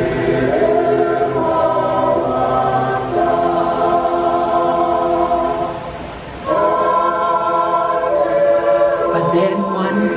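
A choir singing a slow hymn in harmony, holding long chords, with a short break between phrases about six seconds in.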